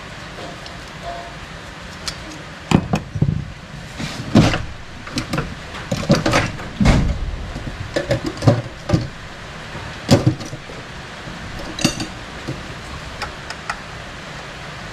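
Hand tools and metal engine parts being handled on a wooden workbench: a run of irregular knocks and clinks for several seconds, then quieter handling with one light ringing click.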